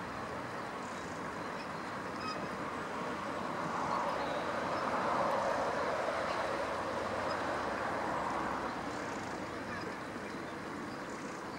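Road traffic noise: a vehicle passing, rising to its loudest about halfway through and then fading back to the steady traffic noise.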